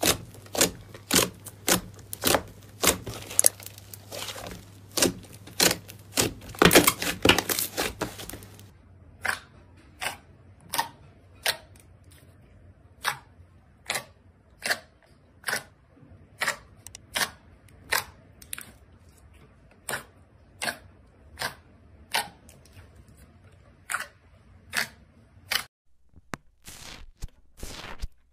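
Slime being pressed and worked by hand, making sharp popping clicks. The clicks come thick and fast for the first eight seconds or so, then settle into single pops about every second.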